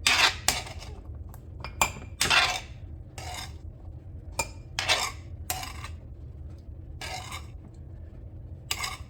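Kitchen utensils and dishes clinking and scraping in short, irregular strokes, as diced vegetables are moved off the cutting board; a low steady hum runs underneath.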